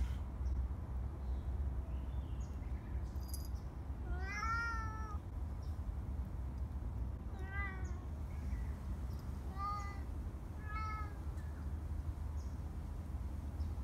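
A cat meowing four times, short arched calls a few seconds apart, the first the longest, over a steady low rumble.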